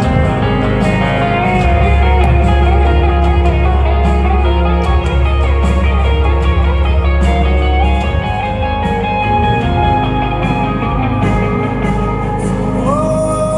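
Live rock band playing with no vocals: electric guitar holds and bends sustained notes over heavy bass and drums, sliding up into a long held note near the end.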